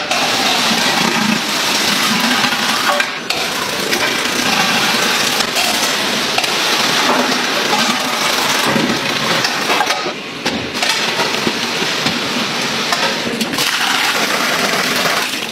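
Food-factory production-line noise: steady machine clatter and hiss, with metal clinks as steel trays ride a chain conveyor. The sound changes briefly at several points.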